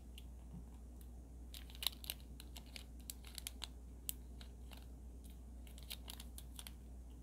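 Fingers peeling open the tiny crinkly wrapper of a miniature toy chocolate bar: faint, irregular crinkles and small clicks, clustered about two and three and a half seconds in.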